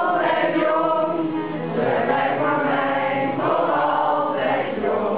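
Several voices singing a song together in phrases, a man's voice and a boy's voice among them.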